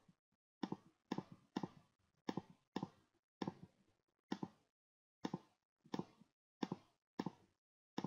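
Computer mouse button clicked about a dozen times at an uneven pace, roughly one to two clicks a second, each a quick double tick of press and release, with silence between.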